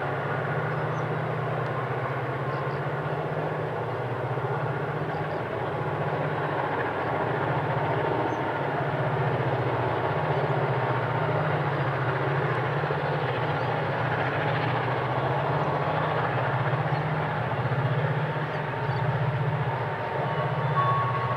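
EMD two-stroke diesel locomotives working a heavy freight train, with a steady low engine throb and a dense mechanical din over it, growing a little louder partway through.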